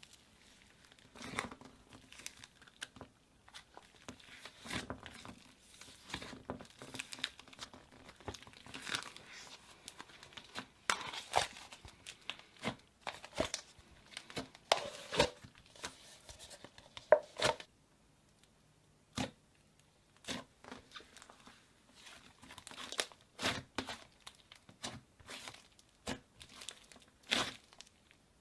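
Hands squeezing and stretching slime: a run of irregular crackles and pops, with a short pause about two thirds of the way through.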